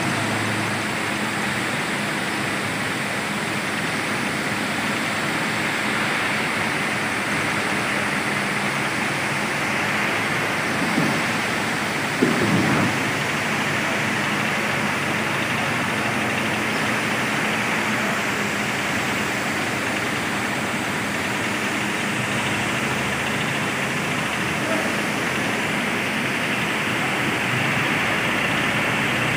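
ACE 12XW pick-and-carry crane's diesel engine running steadily while it holds the work platform aloft, with a couple of brief knocks about eleven and twelve seconds in.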